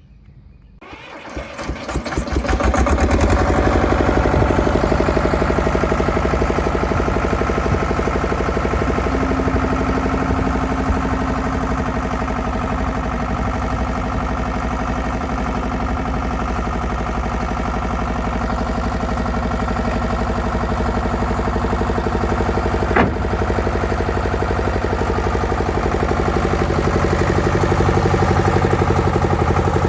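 Leeboy L1000T asphalt paver's engine cranking and catching about a second in, then running steadily at idle. A single sharp click comes near the end.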